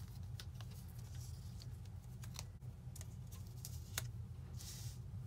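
Layered cardstock strips being laid out on a craft mat by hand: light taps and paper rustling, with a sharp tap about four seconds in and a short rustle just after, over a steady low hum.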